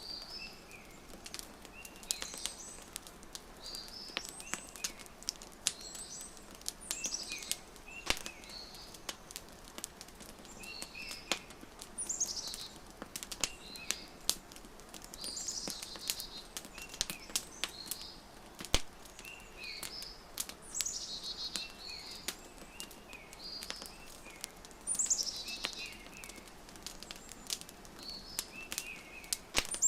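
Wood fire crackling with scattered sharp pops, under small birds chirping and singing short, high phrases every second or two.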